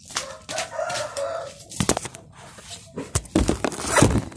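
A chicken calls briefly about half a second in. Then come knocks and rustling as the phone is handled and moved, loudest near the end.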